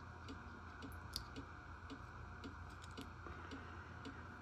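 Faint regular ticking, about two ticks a second, over a low steady hum.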